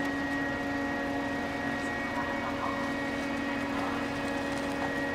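Steady drone of a large passenger/Ro-Ro ferry's onboard machinery as the ship comes alongside, several constant hum tones over an even background noise.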